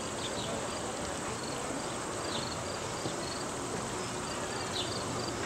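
Insects chirping in a steady, evenly pulsed rhythm of short high notes, over a constant outdoor background hiss, with a few brief high calls now and then.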